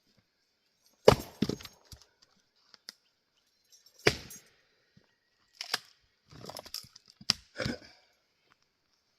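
Axe splitting Douglas fir rounds: a sharp strike and crack about a second in, another about four seconds in, then a run of lighter knocks and cracks between about five and a half and eight seconds.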